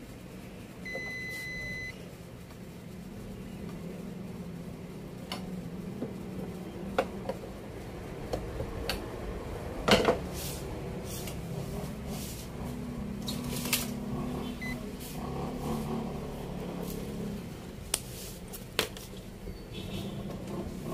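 Hand screwdriver work and handling of a plastic TV back cover: scattered clicks, taps and knocks of screws, tools and panel, the sharpest about ten seconds in. A single one-second electronic beep sounds about a second in, over a steady low hum.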